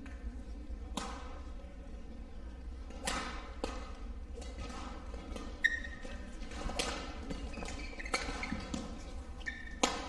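Badminton racket strikes on a shuttlecock during a rally: a string of sharp hits about a second apart, with a short shoe squeak on the court floor about halfway through.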